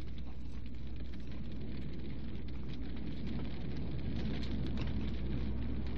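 A large fire burning with a steady rushing noise and dense crackling, a little louder about four seconds in.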